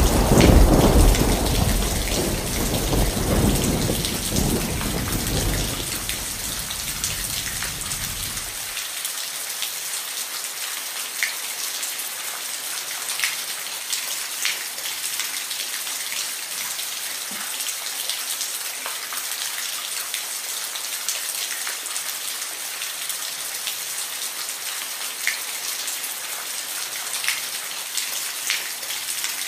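Steady rain falling, with a rumble of thunder at the start that dies away over the first eight seconds or so; after that only the rain, with scattered sharper drips.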